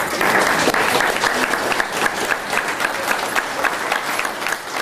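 Audience applauding, with one pair of hands clapping close by in a steady run of sharp claps over the rest of the crowd.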